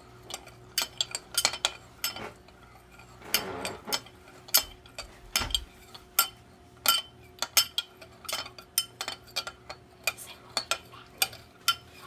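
Metal utensil stirring melting crayon wax in a glass bowl, clinking sharply against the glass many times at an irregular pace.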